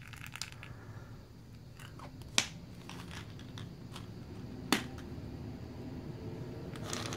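Plastic surprise-egg halves and candy being handled: small clicks and taps, with two sharper clicks about two and a half and five seconds in.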